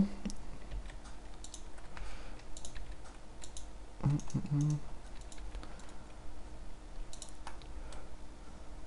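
Computer keyboard keys and mouse buttons clicking, scattered irregular taps over a steady low background hum, with a short low hum-like sound about four seconds in.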